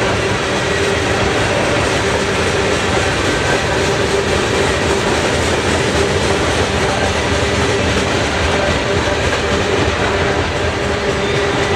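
Freight train cars rolling past close by: a loud, steady rolling noise of steel wheels on the rails, with a faint steady ringing note.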